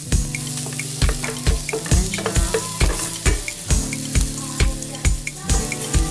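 Chopped onion sizzling in hot oil in a ceramic pan while a wooden spoon stirs it. Background music with a steady beat of about two thumps a second plays underneath.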